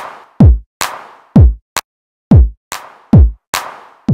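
Modern 909 drum-machine beat: deep kicks that drop sharply in pitch, about one a second, alternating with sharp hits that have a hissing tail.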